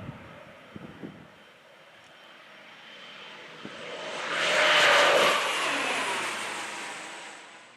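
Air Tractor AT-602 crop-spraying plane with its Pratt & Whitney PT6A-60AG turboprop making a low, fast pass: it builds to a loud peak about five seconds in, then drops in pitch and fades away.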